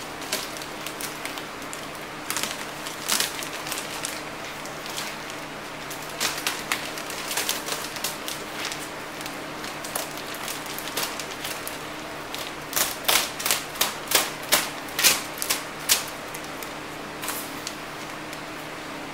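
A thick black plastic bag crinkling and crackling as gloved hands pull and gather it. The crackles come irregularly in bunches and are busiest in the second half.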